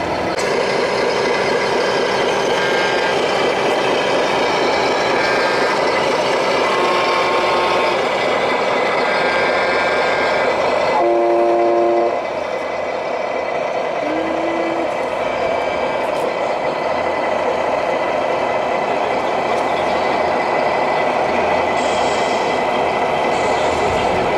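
Truck horns sounding again and again at several different pitches, some short toots and some held for a second or more, one of them a short rising tone, over a steady loud noise of vehicles. The noise drops a little about twelve seconds in.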